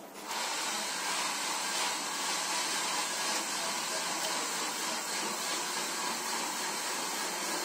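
A steady rushing hiss, like a fan or blower, that switches on abruptly just after the start and holds at an even level.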